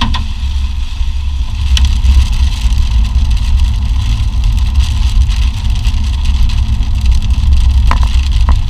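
Steady low rumble of a running vehicle, engine and road noise, with a couple of faint clicks.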